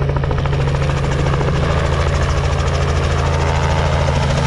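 Helicopter running steadily, its rotor beating rapidly and evenly over a low engine hum.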